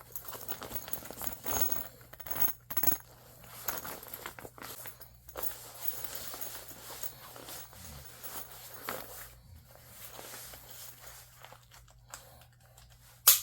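A fabric sling bag being handled: rustling with scattered light clicks and clinks, and one sharp click near the end.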